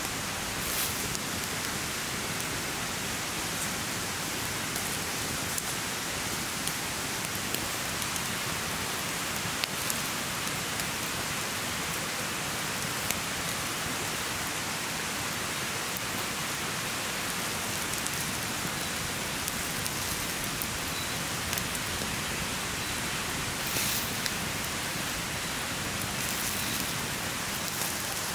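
Chicken and vegetable skewers sizzling over campfire coals: a steady hiss with scattered small crackles and pops.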